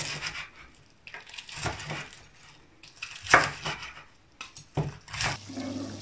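A knife crunching through the crispy fried crust of a breaded chicken piece on a wooden cutting board. There are several separate crackling cuts, the loudest a little past halfway. A low steady hum comes in near the end.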